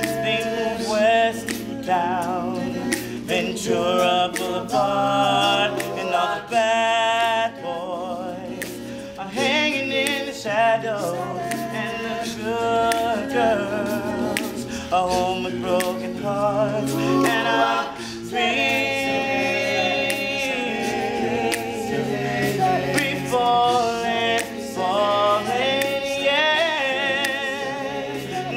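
Male a cappella group singing: a lead voice over the group's close harmonies and held low bass notes.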